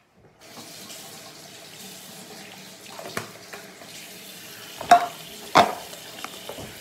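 Water running steadily from a tap into a sink, starting about half a second in, with a few sharp knocks over it, the two loudest about five seconds in.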